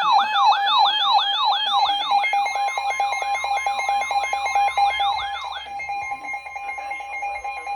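Electronic emergency alert tones layered together: a fast siren-like sweep repeating about three times a second over a steady tone. The sweep stops at about six seconds in. About two and a half seconds in, a steady weather-radio warning alarm tone starts up and holds on.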